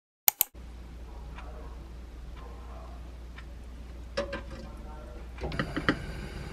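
Gas hob's igniter clicking a few times and the burner lighting under a saucepan, with a rise in hiss near the end, over a steady low hum. Two sharp clicks come just after the start and a light knock of the pot about four seconds in.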